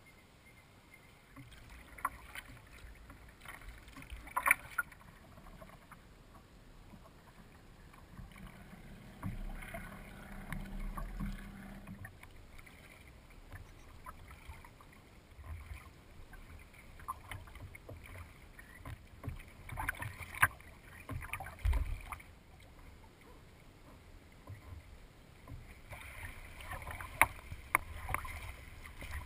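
Kayak paddle strokes dipping and splashing in the water, with water lapping and dripping against the hull, in irregular clusters of small splashes.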